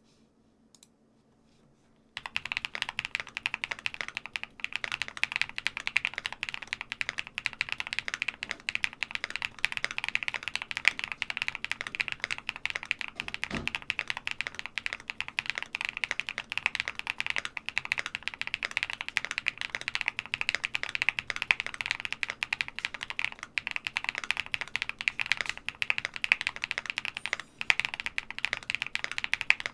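Fast continuous typing on a QwertyKeys QK75N mechanical keyboard with lubed BSUN Kiki Red linear switches on an aluminium plate, fully foamed. The keystrokes start about two seconds in, with one low thump about halfway through.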